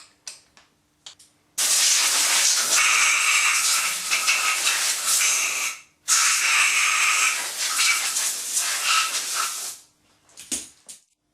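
Two long, loud hisses of a pressurised jet, each about four seconds, with a short break between them. A few light clicks come before and after.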